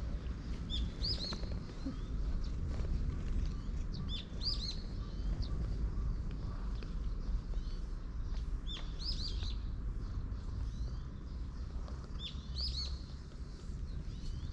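A songbird singing the same short phrase of chirping notes four times, about every four seconds, over a steady low rumble.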